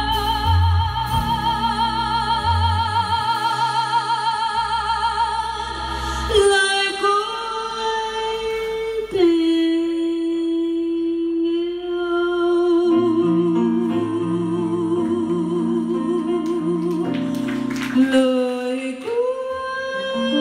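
Live band performance of a Vietnamese love song: a woman sings long held notes with wide vibrato over electric bass and keyboard. The bass drops out about six seconds in, and she then holds a lower note for several seconds over sparse accompaniment.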